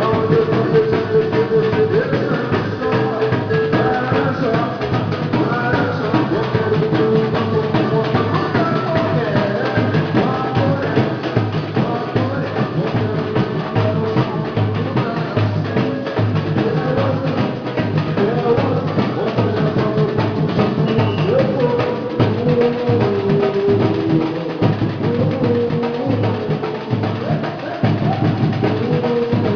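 Batucada percussion group playing a driving drum beat with a deep bass drum, under a melody line.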